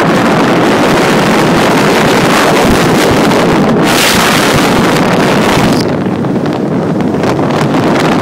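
Heavy wind rushing and buffeting over a phone's microphone as it is carried fast through the air on a moving car, with a stronger gust about four seconds in.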